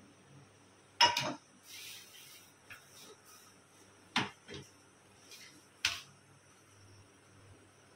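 Containers and puja items being handled: a few sharp knocks and clatters, the loudest about a second in, others a little after four seconds and near six seconds, with a brief rustle around two seconds in.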